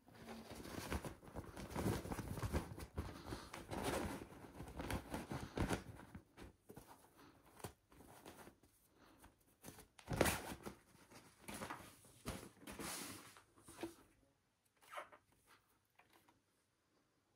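Handling noise from unboxing a computer power supply: irregular rustling and crinkling of packaging and cardboard as the unit and its parts are moved about, with a louder sharp sound about ten seconds in. It dies down to faint handling near the end.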